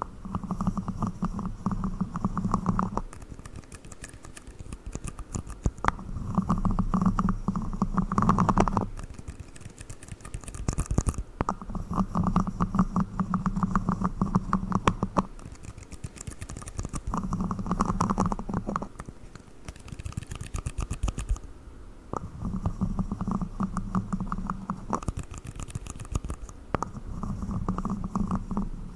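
Rapid tapping on red plastic cups, in about six bouts of two to four seconds separated by short pauses, with a hollow plastic resonance.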